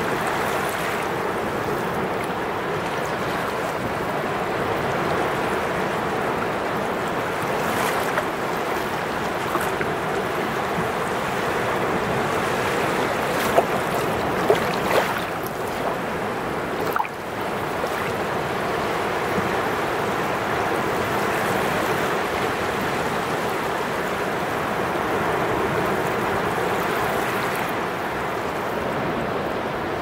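Small sea waves washing in and out over wet sand at the shoreline, heard close up as a steady rush and fizz of shallow surf. A few short sharp sounds stand out about halfway through.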